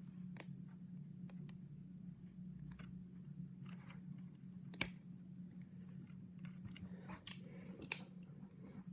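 Clicks and snaps of a stiletto-style switchblade comb being worked, its spring-loaded comb blade opened at the button and clicked shut, with one sharp snap about five seconds in the loudest. A low steady hum runs underneath.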